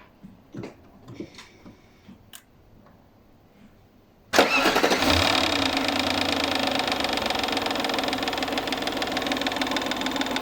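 Audi A8 D2's 4.2-litre ABZ V8 is cranked and catches about four seconds in, then idles steadily with its accessory drive belt removed. A knock is still there with the belt off, which rules out the belt-driven accessories and points inside the engine, toward the oil pump or the timing chain. A few faint clicks come before the start.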